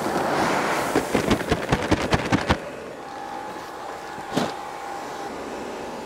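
Seed corn pouring from a paper seed bag into a planter's seed tank. Then the bag is shaken out in a quick run of about a dozen sharp paper snaps, to get the last kernels out.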